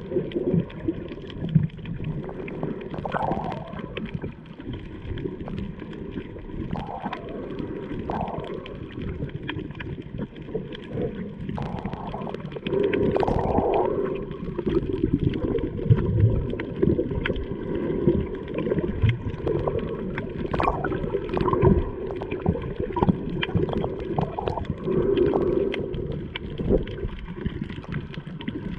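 Muffled underwater sound: low sloshing and gurgling of water moving around the submerged camera, with irregular bumps and short bubbling swells.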